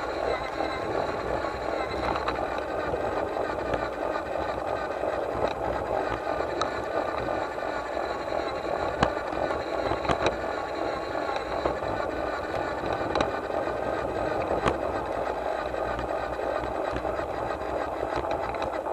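Garden-railway locomotive running along its track: a steady mechanical whir with a handful of sharp clicks.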